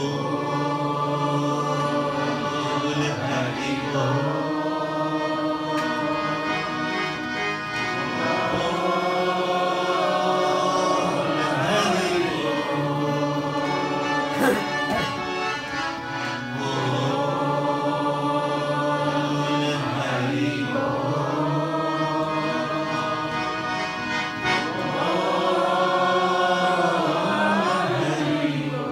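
A man singing a devotional song in long, drawn-out phrases that bend and glide in pitch, accompanied by his own Bina harmonium holding steady reed chords underneath.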